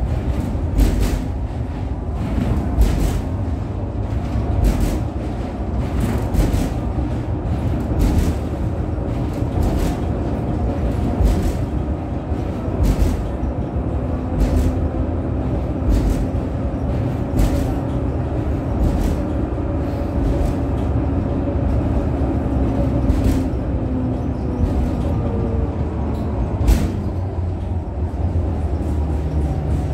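Inside the passenger cabin of a V3A-93 articulated tram in motion: a steady low rumble of wheels on rail, with sharp knocks and clicks every second or two and a faint hum whose pitch shifts near the end.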